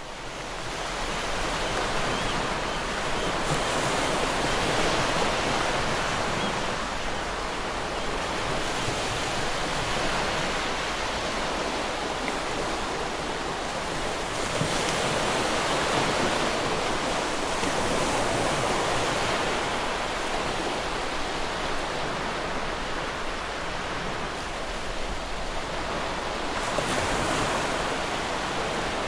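Beach surf: a steady wash of waves, swelling and easing slowly, fading up over the first two seconds.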